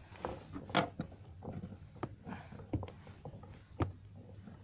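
Scattered small clicks and taps of hands handling small gear close to the microphone, about seven over four seconds, with faint rustling between them.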